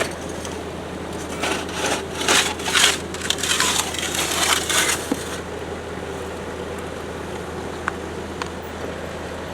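Off-road vehicle's engine running with a steady low hum, and a few seconds of crunching and crackling starting about a second and a half in and stopping about five seconds in, like tyres grinding over rock and gravel.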